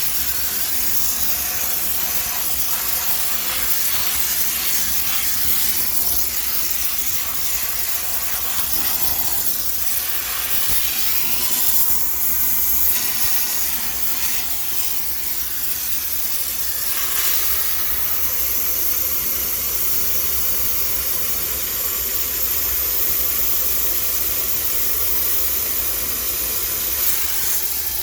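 High-pressure steam cleaner hissing steadily as it jets steam to sterilize a washing machine, the hiss swelling and easing a little midway.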